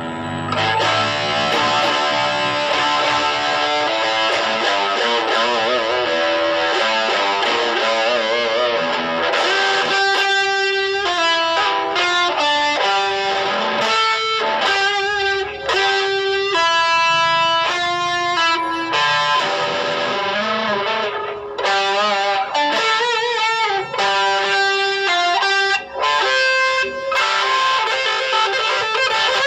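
Electric guitar played through a Mooer GE100 multi-effects processor. Held, ringing chords with a wavering pitch run for the first several seconds, then single-note lead lines from about ten seconds in.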